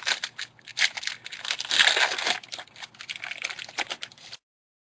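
Foil wrapper of a 2011 Finest football card pack being torn open and crinkled by hand, an irregular crackling that is loudest about two seconds in.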